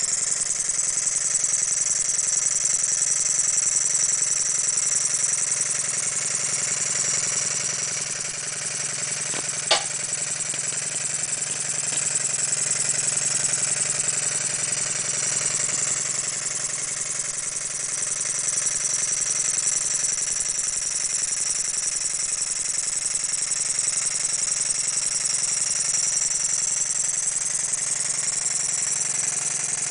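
Stuart 10V single-cylinder model steam engine running fast on compressed air, a steady high-pitched whir with the rattle of its moving parts, its pitch wavering slightly. One sharp click comes about ten seconds in.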